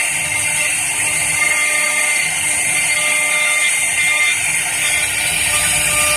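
Carving spindle of a CNC wood lathe running with a steady high whine as its long router bit cuts a relief pattern into a wooden cylinder, with a hiss of wood being cut.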